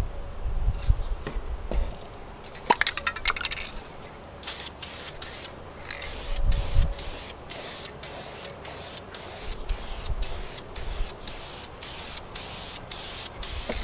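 Aerosol spray paint can spraying in short repeated bursts of hiss, about two a second, starting a few seconds in. A brief rattle comes just before the spraying begins.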